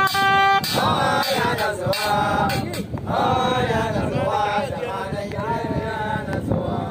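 A group of men chanting a folk song together over a steady beat of hand drums. It opens with a note held for about half a second before the voices come in.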